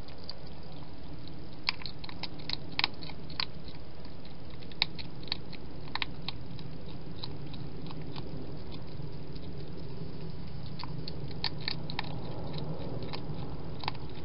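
Hedgehog eating from a dish: irregular crunching and clicking of chewing, coming in clusters, over a steady low hum.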